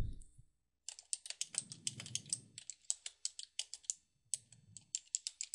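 Rapid typing on a computer keyboard: a quick run of keystrokes with a brief pause about four seconds in.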